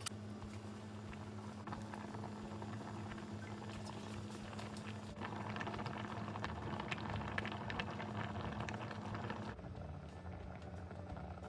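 Oyster and rice-cake soup boiling hard in an enamel pot: steady bubbling with many small pops, growing busier about five seconds in.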